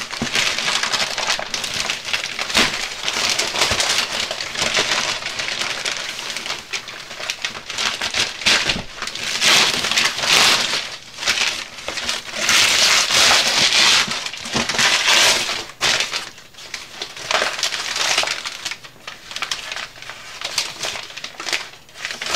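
Brown paper wrapping being ripped and torn off a cardboard box, in an irregular run of rips and crinkles, loudest in a few bursts around the middle.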